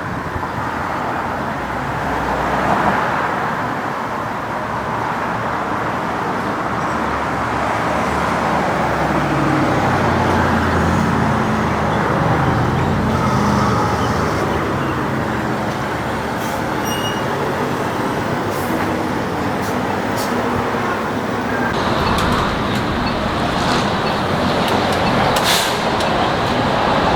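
City street traffic: steady road noise, with a heavy vehicle's engine passing through the middle, its pitch sliding up and down.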